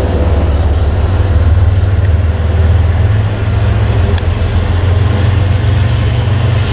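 MBTA HSP46 diesel locomotive pulling a commuter train away down the line, its engine and wheels giving a steady, loud, deep rumble.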